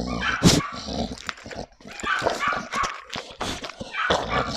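A dog whining and giving short barks, eager and begging while being hand-fed bread. The calls come in a string of short bursts, the loudest about half a second in.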